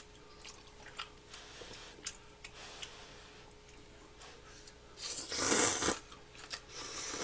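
Instant curry ramen noodles being slurped up from chopsticks, with soft chewing and small clicks in between. A long, loud slurp comes about five seconds in, and a shorter one near the end.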